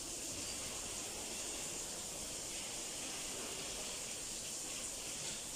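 Overhead shower heads spraying water steadily onto a small car in a simulated rain test, an even hiss of falling water.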